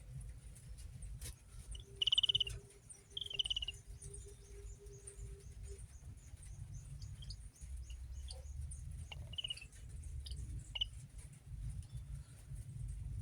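A bird calling: two short, high chirping calls about a second apart, then a few fainter chirps later, over a steady low background rumble.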